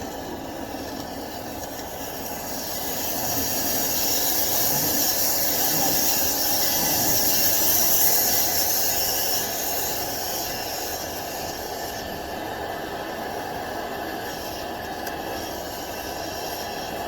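Dryer vent cleaning equipment running steadily in a lint-filled duct, a rushing, scraping noise with a strong hiss that swells in the middle and then eases back.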